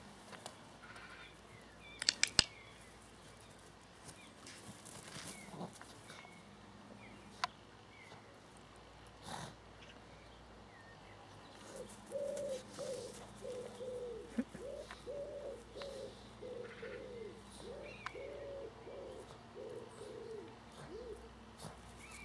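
Outdoor garden sound with scattered small bird chirps and a few sharp clicks. About halfway through, a run of low, evenly repeated calls begins, about one and a half a second, and stops shortly before the end.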